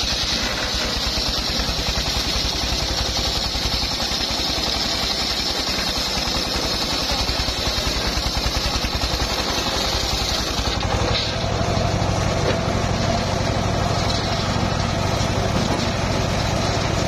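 Homemade engine-driven circular sawmill ripping a hardwood log lengthwise, the blade cutting with a steady high hiss over the running engine. About eleven seconds in the hiss drops away, leaving a lower, fuller note of the engine and free-spinning blade as the cut ends.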